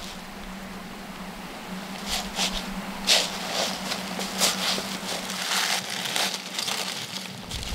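Dry fallen leaves and twigs crackling and rustling in irregular bursts as a person steps and crouches in them, over a steady low hum.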